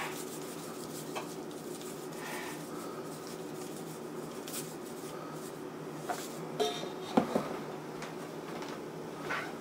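A salt shaker shaken over a raw pork roast, with a few light knocks and clinks of the container being handled. The loudest come about six to seven seconds in, over a steady low hum.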